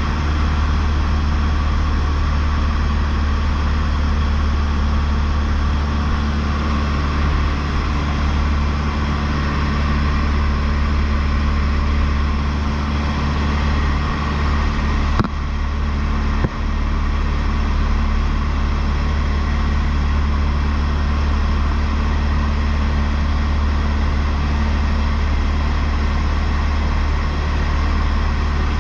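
Cessna 152's four-cylinder Lycoming O-235 engine and propeller droning steadily in cruise flight. There are two brief clicks a little past the middle.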